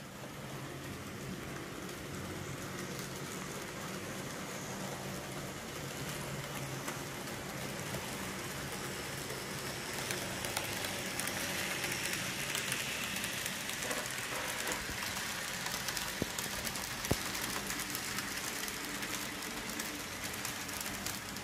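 Two model trains running round a layout: a steady rattling hiss of small metal wheels on the rails and the locomotives' little motors. It swells a little about halfway through, with a few faint clicks from the track.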